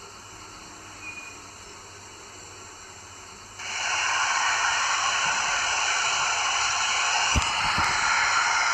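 Steam hiss from the sound decoder of a Dapol Black Label OO gauge A4 model locomotive. It cuts in suddenly about three and a half seconds in and carries on loud and steady, over a faint background hiss, with a short low thump near the end.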